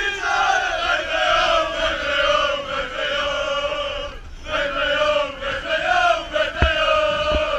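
A group of men chanting a football song together in unison, with a short break about halfway. Two dull thumps near the end.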